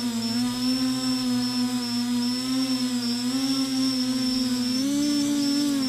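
Quadcopter's brushless motors and propellers humming steadily, heard from the camera on board, with a steady high whine above it; the pitch rises slightly about five seconds in.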